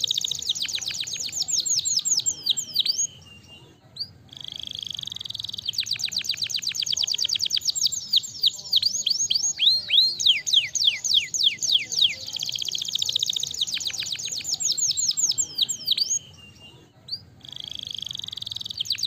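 Domestic canary singing long songs of fast trills, each a rapid run of high, falling whistled notes. There are brief pauses about three seconds in and again near the end.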